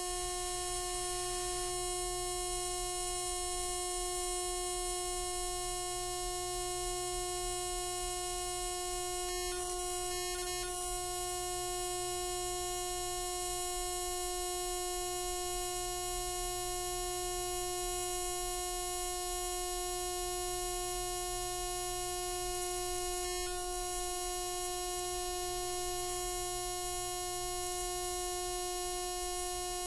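AC TIG welding arc buzzing steadily at its 360 Hz weld-current frequency: one unwavering tone with a ladder of overtones and a faint hiss above.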